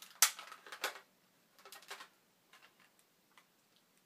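Sharp plastic clicks and knocks from a Nerf blaster being handled after a jammed dart, several in the first second, then a few fainter clicks.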